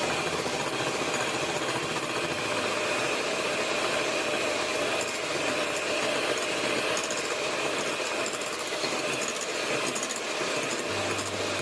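Electric hand mixer running steadily, a continuous motor whine over a rushing noise.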